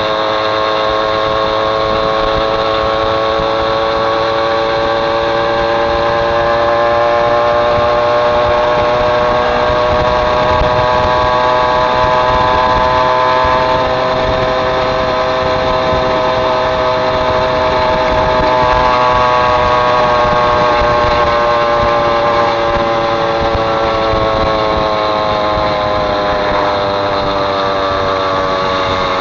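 Caloi Mobylette moped's small two-stroke engine running steadily under way, its pitch drifting slowly up and down with road speed.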